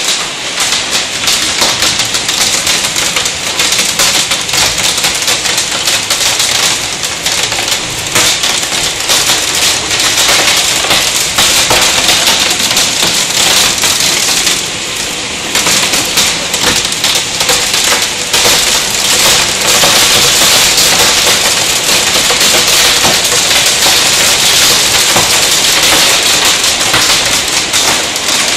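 Hail pelting down in a heavy hailstorm: a loud, dense clatter of countless small impacts, easing briefly about halfway through.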